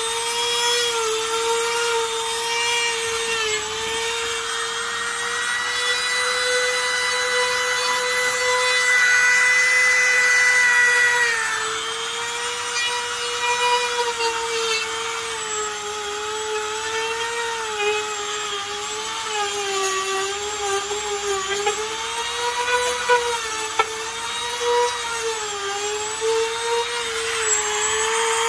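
Small high-speed rotary tool running with a steady whine whose pitch wavers and dips as the bit bears into the work, over the scratchy grinding of the bit against the material. The grinding is heaviest for several seconds near the start.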